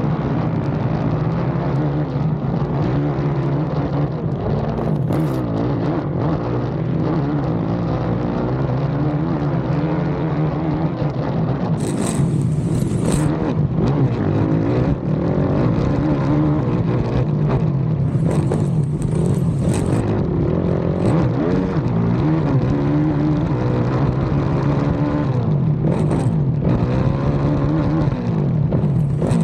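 Racing ATV's engine running hard on a cross-country track, its revs rising and falling as the rider accelerates and backs off. A few brief rushes of noise come through along the way.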